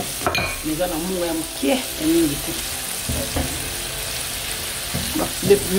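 Sliced onions and green peppers sizzling in a non-stick pan, stirred with a silicone spatula that scrapes the pan now and then.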